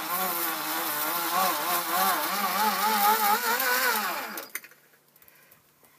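A small electric power tool running hard against wood, its motor pitch wavering up and down as it is pressed, then cutting off about four and a half seconds in.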